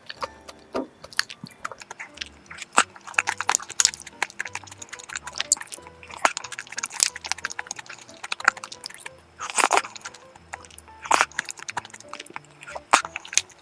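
Close-miked eating of yogurt with dried persimmon, blueberries and grapes: many short wet clicks and smacks of chewing. Under it runs background music with a stepping bass line.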